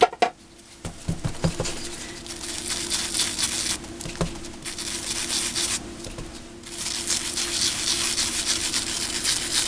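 A foam ink blending tool scrubbing Distress ink onto heat-embossed kraft card stock, in three spells of fast rubbing, after a few light knocks at the start as the ink pad is picked up.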